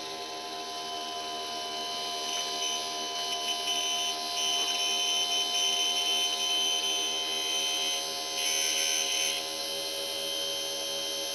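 DM-36-D dynamotor running on a 12-volt supply with a steady whine of several fixed tones. A cotton swab held against the spinning commutator to clean it adds a scratchy hiss. The hiss builds from about two seconds in and then comes and goes in stretches.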